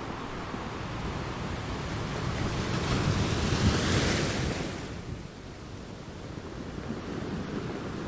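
Ocean surf: the rushing wash of a breaking wave swells to a peak about four seconds in, then falls away suddenly to a lower, steady wash.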